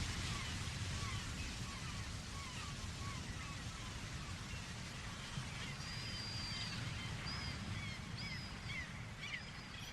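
Birds chirping and calling repeatedly in short, rising and falling notes, over a steady low outdoor rumble.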